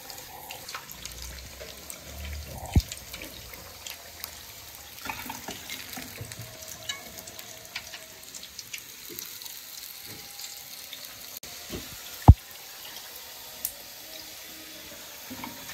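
Breaded chicken fillets deep-frying in hot oil in an aluminium karahi: a steady sizzle with small crackles and pops, the chicken now fully cooked and being lifted out. Now and then sharp clicks of the metal tongs against the pan, one much louder.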